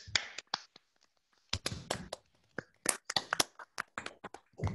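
Scattered applause from several people clapping into their own microphones on a video call: uneven separate claps rather than a steady roll, with a couple of heavier thumps, about a second and a half in and near the end.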